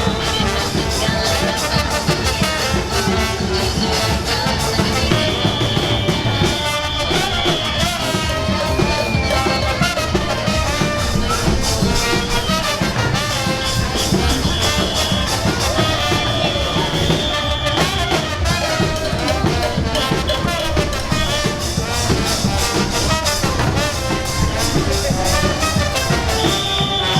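Loud Latin pop music with a steady beat, brass and singing, played over a float's sound system in a street parade.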